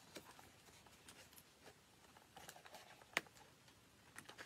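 Near silence with faint scattered taps and rustles of fingers handling the pages of a hardcover picture book, and one sharp click about three seconds in.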